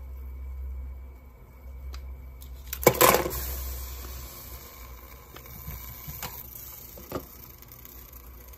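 Saucepan of water at a rolling boil, bubbling steadily, with a sharp knock about three seconds in and a few light clicks later.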